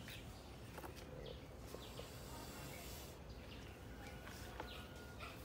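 Quiet outdoor background: a steady low noise with a few faint, brief chirps and small clicks.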